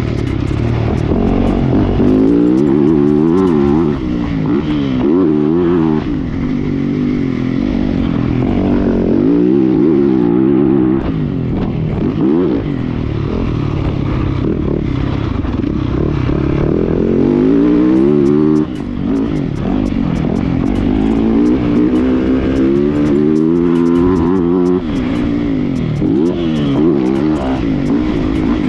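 Yamaha motocross bike's engine, heard from on board while racing: it revs up and drops back again and again through the gears, with brief cuts where the throttle is shut for corners and jumps.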